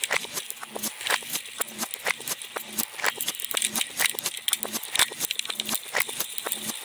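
Cannondale mountain bike rattling over a rough track, picked up by a camera mounted on the bike: frequent sharp clicks and knocks from the chain and frame over a steady hiss, with a soft low pulse about twice a second.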